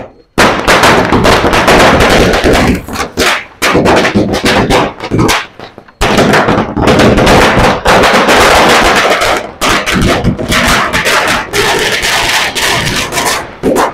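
A long chain of small firecrackers going off in a loud, rapid, continuous crackle of bangs as it burns along its length, with a short break about six seconds in, stopping just before the end.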